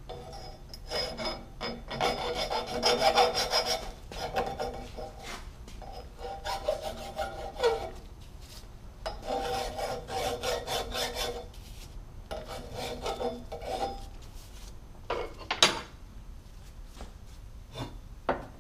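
Hand file scraping along the cut edge of steel square tubing to deburr it, in several runs of quick strokes, the tube ringing under the file. Two sharp metal knocks near the end.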